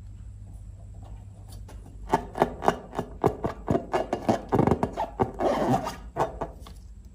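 Slime being squeezed and kneaded by hand, a quick run of sticky clicks and pops starting about two seconds in and dying down near the end.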